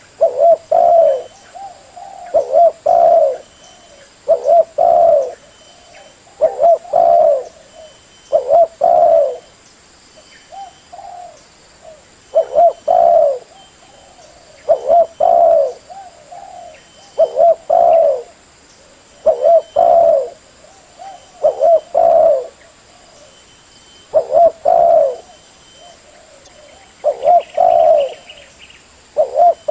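Spotted dove cooing over and over, each phrase a short cluster of coos, repeating about every two seconds.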